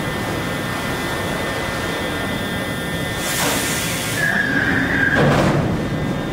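Automotive sheet-metal stamping press line running: a steady industrial din, with a rushing burst about three seconds in, a brief high squeal a little after four seconds, and another rushing burst just after five seconds as the press cycles and stamped body panels are transferred.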